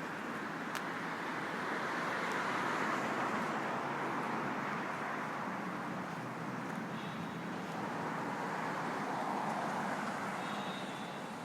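City street traffic: cars passing on the road, the tyre and engine noise swelling about two seconds in and again near the end.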